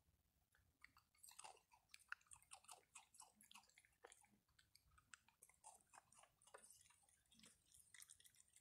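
Faint chewing and crunching of a raccoon eating from a food pile, a quick run of small crunches and clicks starting about a second in.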